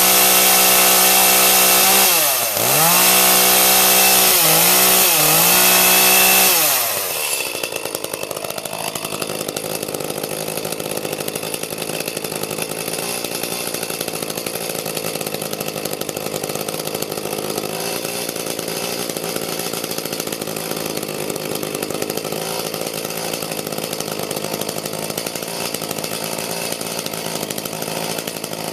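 Echo two-stroke chainsaw revving at high speed, dropping and rising again three times, then settling to a lower, steady running note about seven seconds in as the throttle is released, warming up just after starting.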